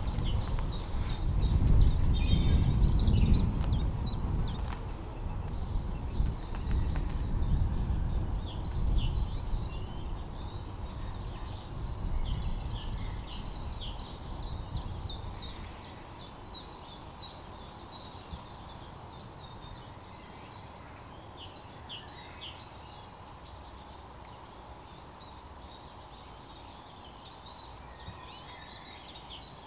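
Class 31 diesel locomotive 31430 running with a low rumble, loudest a few seconds in and fading away over about fifteen seconds. Songbirds sing repeated short phrases throughout.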